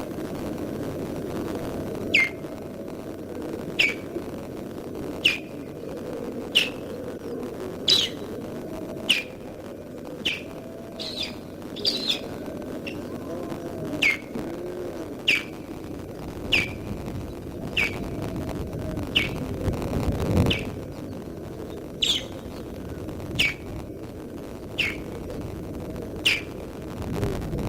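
Osprey giving alarm calls at an intruder: a steady series of short, sharp high calls, each falling slightly in pitch, about one every second and a half.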